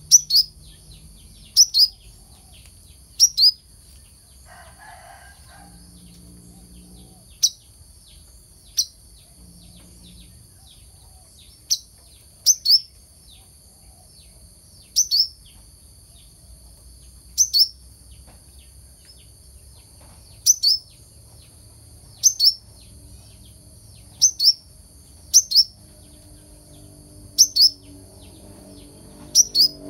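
Brown-throated sunbird calling: short, sharp, high chirps that drop in pitch, mostly in quick pairs, repeated every couple of seconds over a faint steady high-pitched hiss.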